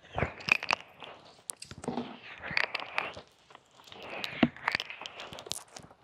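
ASMR ear-massage sounds: fingers rubbing, scratching and tapping a close microphone, giving irregular crunchy rustles and sharp clicks.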